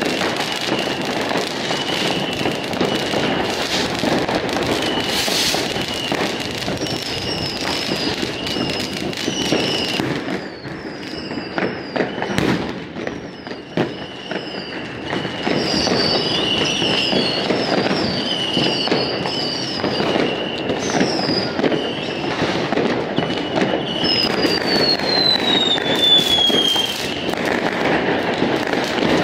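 New Year's Eve fireworks going off all around: a continuous rattle of many distant firecrackers and bangs, with whistling rockets gliding high over it, including one long falling whistle near the end.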